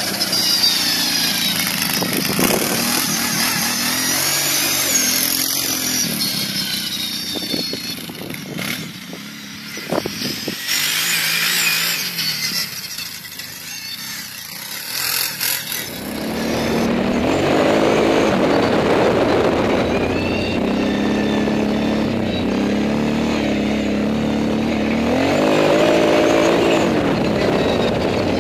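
Quad bike engine revving up and down as it rides a dirt track, quieter for a while in the middle as it gets farther off. From about halfway it is heard close up from on board, its pitch rising and falling with the throttle.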